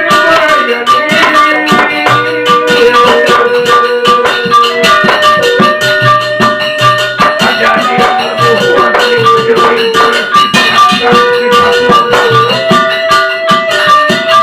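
A Sasak wayang gamelan ensemble plays a gending. A held melody line steps and slides between pitches over dense, rapid percussion, with low drum strokes recurring every second or so.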